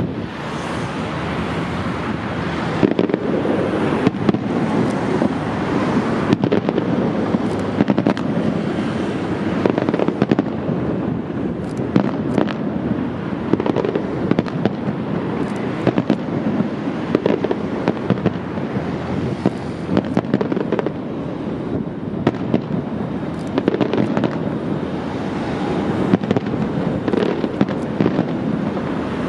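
Fireworks display going off without pause: a dense run of bangs and crackling, many sharp reports following one another over a continuous din.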